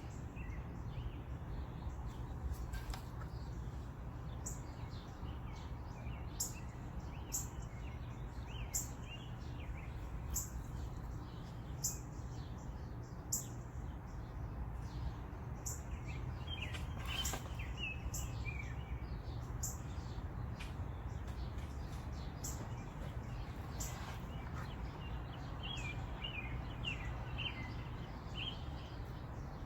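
Birds chirping outdoors, with a short high chirp repeating about every second and a half and a few bursts of twittering calls. A steady low rumble of wind on the microphone runs underneath.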